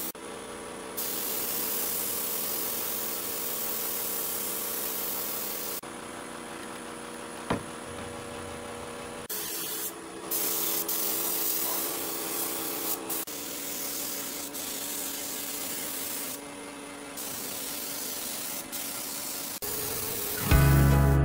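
Compressed-air spray gun with a gravity-feed cup hissing in bursts as its trigger is pulled and released, with a steady hum underneath and a single sharp click partway through. Music comes in near the end.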